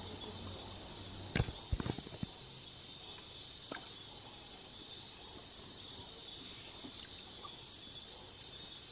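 Night chorus of frogs, a steady high-pitched trilling. A few soft knocks come about a second and a half to two seconds in.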